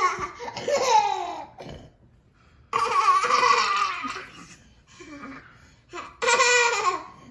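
Toddler laughing hard in three bursts, at the start, about three seconds in and again about six seconds in.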